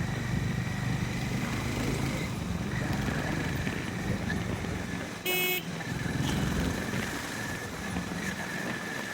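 Harley-Davidson X440's single-cylinder engine running at riding speed, with road and traffic noise. A vehicle horn gives one short honk a little past halfway through.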